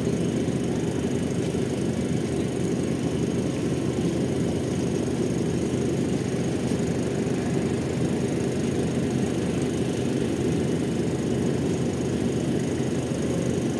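Steady, unchanging low engine rumble.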